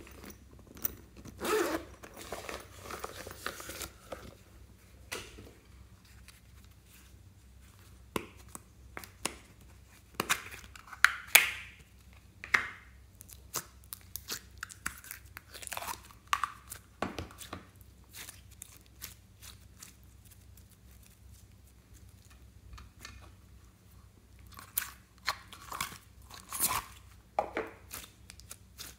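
Irregular crinkling, clicking and sticky tearing sounds of hands working plastic slime containers and squeezing soft slime out of a plastic tub. The sounds come in clusters with a quiet stretch a little past the middle.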